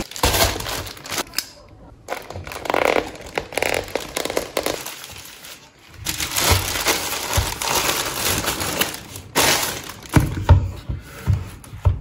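Thin plastic courier bag rustling and crinkling in irregular bursts as a pair of foam slippers is pulled out of it, with a few soft thuds near the end.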